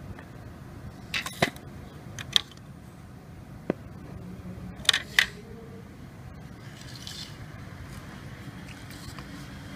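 About six sharp clicks and taps, bunched in the first half and including two quick pairs, over a steady low background hum: handling noise, close to the microphone.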